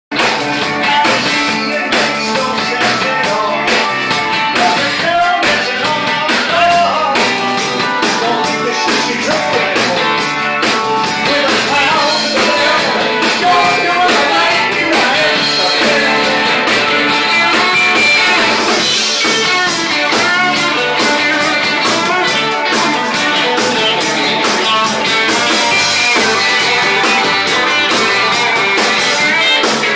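Live rock-and-roll band playing loud: electric guitars, a drum kit keeping a steady beat, keyboard and a male singer, heard in the room.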